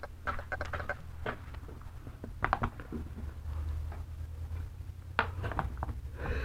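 Scattered light clicks, taps and rattles of a cat wand toy being waved and batted at, over a steady low rumble of a handheld phone being moved.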